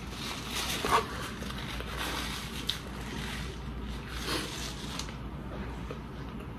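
Close-up chewing of a burger, with soft rustling and crinkling of its paper wrapper and a paper napkin.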